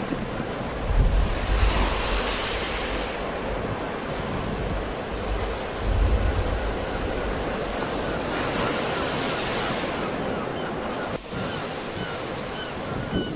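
Sea waves breaking and washing in, with two louder swells of surf about a second and about eight seconds in, and wind buffeting the microphone. A few faint short chirps near the end.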